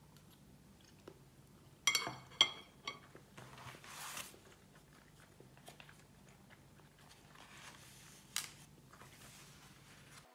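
Hard objects clinking together: three sharp, briefly ringing clinks about two seconds in, then softer rustling and handling noise and one more click, over a low steady hum.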